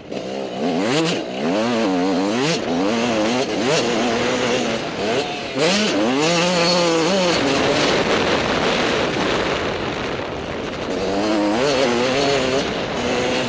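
Off-road motorcycle engine revving as it rides a dirt motocross track, its pitch climbing and dropping several times as the throttle is opened and closed.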